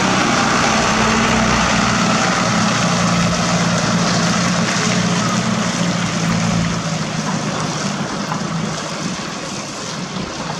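Diesel engine of an overloaded Isuzu Elf NMR 71HD dump truck running steadily as the laden truck drives off, over a constant rushing noise. The sound grows fainter from about seven seconds in as the truck moves away.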